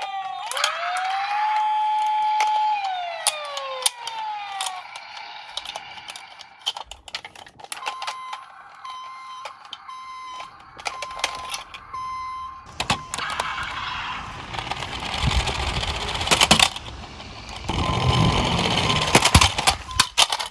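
Toy emergency-vehicle siren wailing at the start, its pitch sliding down and up in repeated sweeps. About eight seconds in come a string of short electronic beeps. From about thirteen seconds, toy cars rattle and rumble as they roll down a plastic slope, with many small clicks and knocks.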